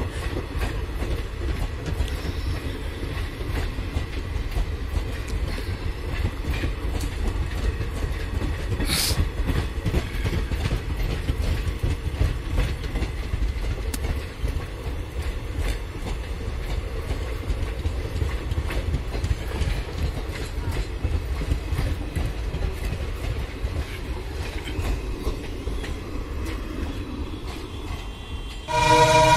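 Passenger express coaches rolling past at speed: a steady rumble of wheels on rail with the clickety-clack of wheels over rail joints. Near the end a locomotive horn starts to sound.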